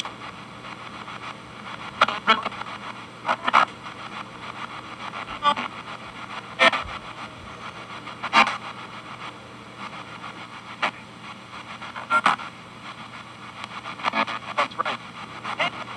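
P-SB7T spirit box radio sweeping the FM band, played through a noise gate pedal into a small Esteban G-10 guitar amplifier: a steady hiss of static broken every second or two by short clipped fragments of broadcast audio as it skips from station to station.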